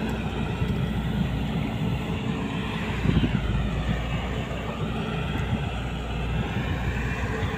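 Diesel engine of a Volvo crawler excavator running steadily, with a louder swell about three seconds in.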